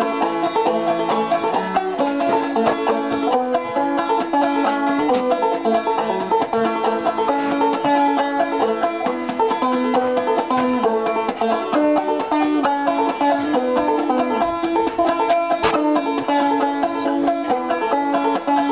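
Background bluegrass music led by a banjo playing rapid plucked notes.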